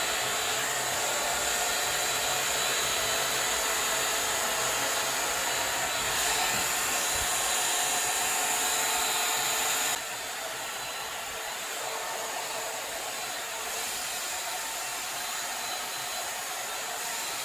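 Agaro volumizing hot air brush dryer running with a steady blowing rush and a high whine. About ten seconds in it becomes noticeably quieter and the whine fades.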